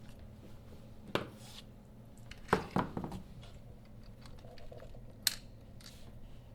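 Sharp clicks and clacks of small track parts being handled during disassembly of a traverse curtain track's master carrier: one about a second in, a cluster of several around the middle, and one more past five seconds.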